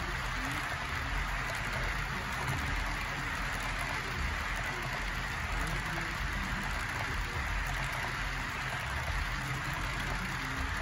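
Model railroad tank cars rolling past on the track, a steady whir and rattle of small wheels running over the rails.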